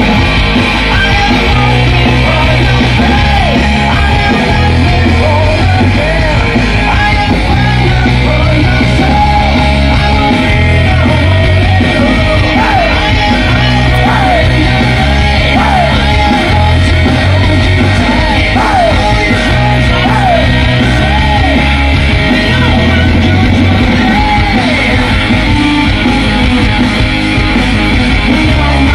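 Loud rock music from a band with bass guitar, drums and yelled vocals. A low bass riff repeats in a pattern every few seconds under the shouted singing.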